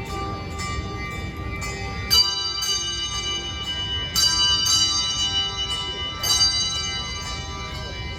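Handbell choir playing a tune: many bells struck and left ringing in overlapping tones, with louder chords struck about every two seconds.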